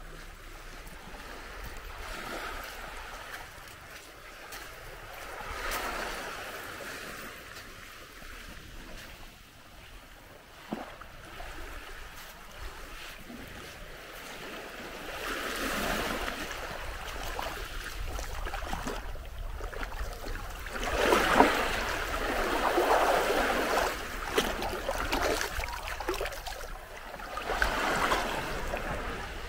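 Small sea waves washing up a sand beach and around rocks, swelling and falling back every few seconds, the strongest wash about two-thirds of the way through.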